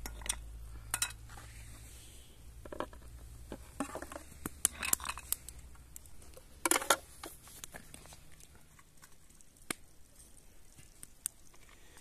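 Cookware and utensils being handled: scattered clinks and knocks, bunched in the middle, the loudest about seven seconds in.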